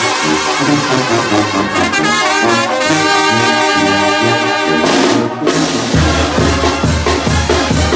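Mexican banda, a brass band, playing: trumpets and trombones carry a melody. About six seconds in the horns stop, and drum beats over a low held bass note take over.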